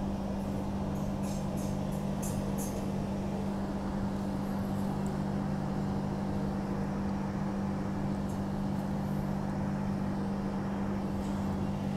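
Inside a Transperth A-series electric multiple-unit train: a steady low electrical hum with running noise. A few light rattles come about one to three seconds in and again near the end.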